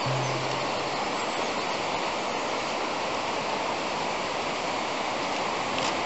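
Steady rush of a mountain stream, an even hiss of running water. A last low note of guitar music fades out in the first second.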